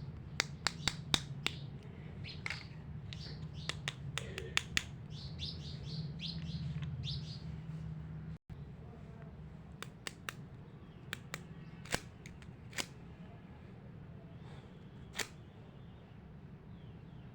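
Small plastic toy kitchen pieces clicking and tapping as they are handled and fitted together, with short high squeaky chirps among the clicks. The clicks come quickly at first, then more sparsely after a brief break.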